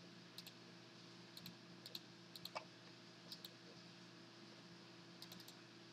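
Faint computer mouse clicks, about six quick pairs of short clicks spread over a few seconds, over a low steady hum.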